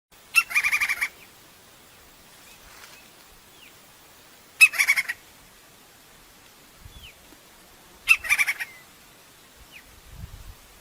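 Crimson-crested woodpecker calling three times, about four seconds apart: each call is a sharp first note followed by a fast run of about half a dozen notes, lasting well under a second.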